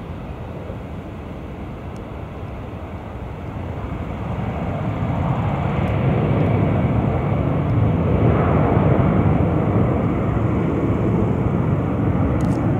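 Airbus A320-214's twin CFM56-5B turbofan engines at takeoff thrust as the airliner climbs away: a broad, even jet noise that grows louder from about four seconds in and then stays loud.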